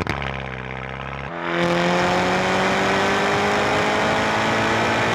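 2011 Volkswagen GTI Mk6's turbocharged 2.0-litre four-cylinder and its modified exhaust accelerating: after a brief break at the start, the exhaust note gets louder about a second in and climbs steadily in pitch as the revs rise.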